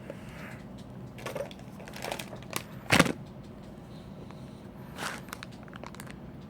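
Scattered rustling and clicking of things being handled, with one sharper knock about three seconds in, over a steady low hum.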